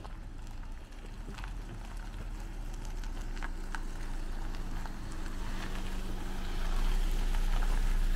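A car driving slowly along a wet gravel driveway and passing close by, its engine hum and tyre noise growing steadily louder as it approaches. Faint footsteps crunch on gravel throughout.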